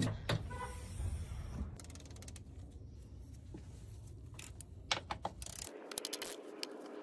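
Hand ratchet clicking in three short runs as the upper strut mount nuts are loosened, over a low rumble that stops about six seconds in.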